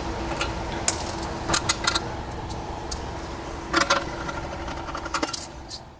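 Scattered sharp metallic clicks and clinks as hose clamps are worked off the steel drum of a spring-driven hose reel, over a steady low hum. The sound fades out near the end.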